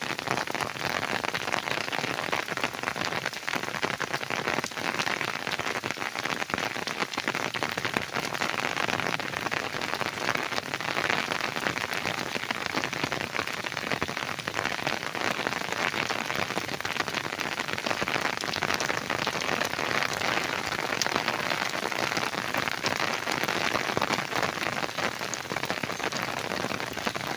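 Heavy rain pouring steadily, a dense, even hiss of drops that holds without let-up.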